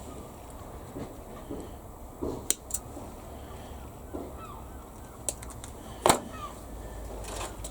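Scattered light clicks and taps of small plastic model-kit parts being handled and fitted, with the loudest click about six seconds in.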